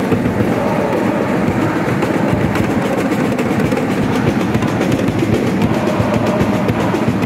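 A large crowd of school basketball supporters chanting and singing together over fast, steady drumming on supporter drums, loud and unbroken.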